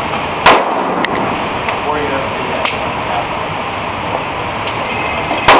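Two shots from a 9mm pistol, about five seconds apart, each a single sharp crack. A few fainter pops fall between them over a steady background hiss.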